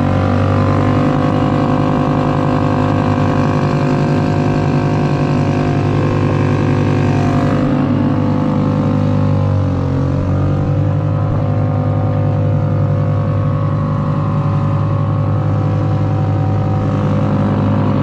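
Suzuki 2.5 HP single-cylinder four-stroke outboard motor running steadily under way, its note dipping briefly and coming back up near the start and again about halfway through.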